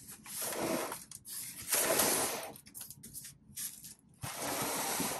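Styrofoam packing being handled and shifted, in four bursts of scraping and rustling; the loudest comes about two seconds in.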